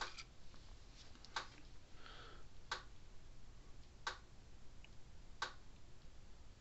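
Faint sharp clicks at a steady, even pace, about one every 1.35 seconds, four in all, with a brief soft rustle of a small part being handled about two seconds in.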